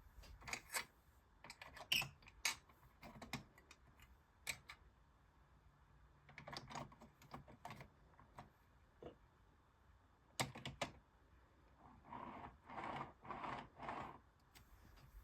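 Train-set parts and packaging being handled: irregular light clicks and taps of small hard pieces, with a short spell of rustling near the end.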